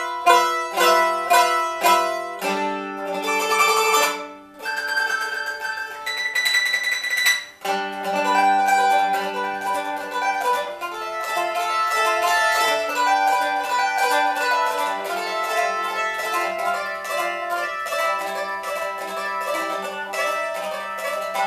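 Handmade bowl-back mandolin with fluted maple ribs, strung with blue Optima strings, played solo: a plucked melody with two short stretches of fast tremolo picking, about three and six seconds in.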